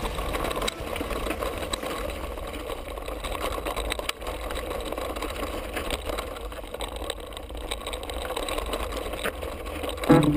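Mountain bike rattling and knocking over a rocky singletrack descent, with many small impacts as it runs over loose stones and wind rumbling on the camera microphone.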